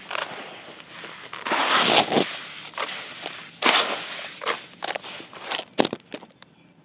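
Hands scooping and dropping handfuls of dry, gritty crumbled clay back into the pile: a run of rustling, crunching pours, the longest about one and a half to two seconds in, then shorter crunches that thin out near the end.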